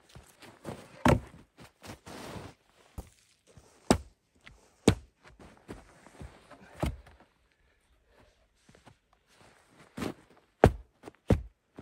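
Cut logs being set down and knocked against one another on packed snow, about ten thunks at irregular intervals with a lull two-thirds of the way through, and footsteps in snow between them. The logs are being laid in front of a car tyre stuck in deep snow, for traction.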